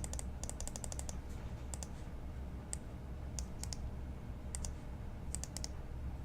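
Typing on a computer keyboard: light key clicks, some single and some in quick runs of several, over a steady low hum.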